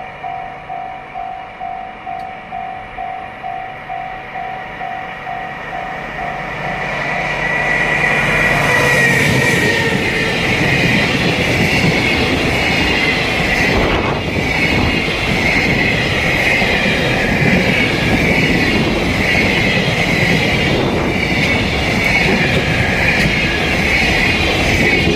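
Japanese level-crossing warning bell ringing about twice a second. About seven seconds in it is drowned out as a DF200 diesel-electric locomotive and its freight train pass close by, with a loud, steady rumble and wheel-on-rail noise from the passing wagons.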